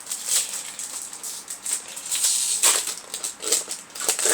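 Crinkling and rustling of a foil Yu-Gi-Oh! booster pack wrapper being handled and torn open, in quick irregular crackles.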